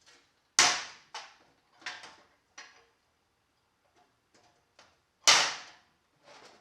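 Hammer strikes on a steel car door hinge, knocking out its old pin and bushings: a loud metallic strike about half a second in, a few lighter taps after it, faint ticks, and another loud strike a little past five seconds.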